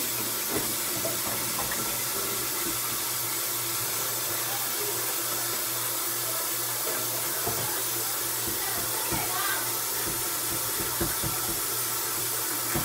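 Kitchen tap running steadily into the sink while dishes are washed by hand, with a few light knocks of dishes against the sink.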